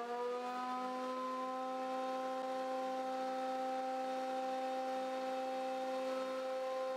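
JET JJP-8BT jointer/planer's 13-amp motor and cutterhead running with a steady whine. About the first second, the pitch rises as the motor spins back up to speed once the 2x4 is clear of the cutters and the load comes off; it then runs steady, unloaded.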